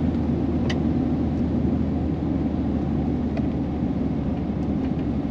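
Steady in-cab drone of a 2000 Chevrolet Silverado pickup on heavy 33-inch tires going down a steep road, engine and tire rumble together, with a couple of faint ticks.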